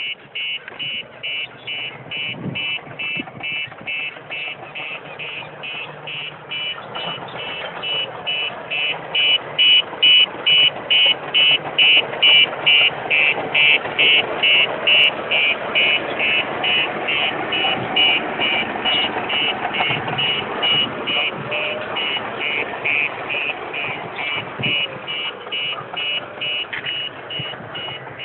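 A heavy vehicle's reversing alarm beeping steadily, about two beeps a second, louder in the middle, over the low running of its engine.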